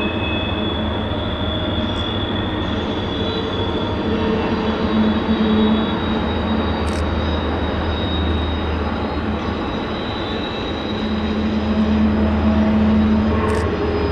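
Long Canadian Pacific freight train rolling past: a steady rumble of wheels on rail, with a thin high-pitched squeal from the wheels running through it.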